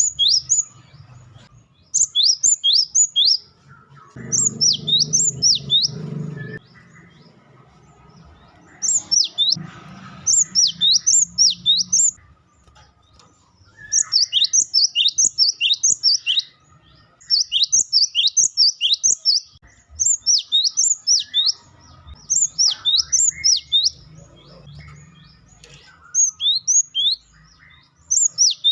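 Cinereous tit (gelatik batu) calling in rapid bursts of sharp, high, downward-sweeping chirps, several notes to a burst, the bursts repeating every couple of seconds with brief pauses between them.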